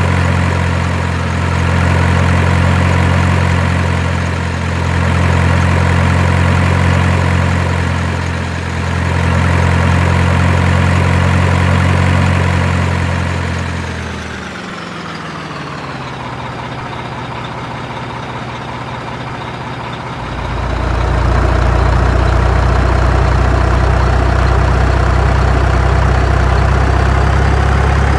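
Heavy truck engine idling steadily; about halfway through it winds down in pitch, and a few seconds later a deeper idle starts up and runs steadily.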